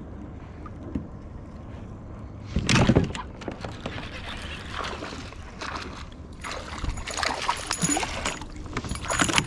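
Water splashing and sloshing against a small fishing boat, with one loud splash about three seconds in and a run of smaller splashes and knocks near the end.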